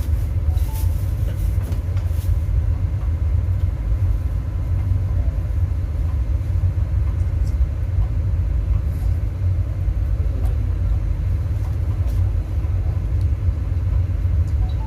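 Steady deep bass rumble from a large sound system's subwoofers during sound setting, with nothing above the low bass.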